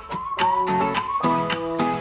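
Background music: acoustic guitar plucked and strummed, with a melody line.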